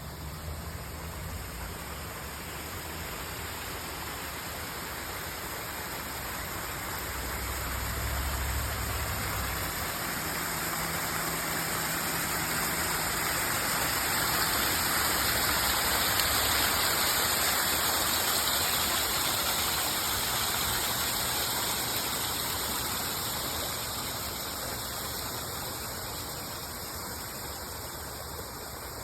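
Water from a natural stone waterfall pouring and splashing over rocks in a steady rush, swelling louder toward the middle and easing off again near the end.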